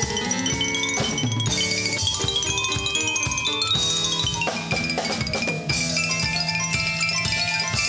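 Xylophone played extremely fast in rapid runs of notes, accompanied by a live band with drum kit and keyboards.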